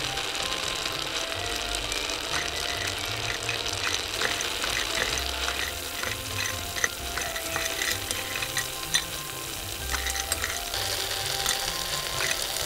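Hot oil sizzling as food fries in a miniature pan, with small clicks of a utensil stirring and turning it.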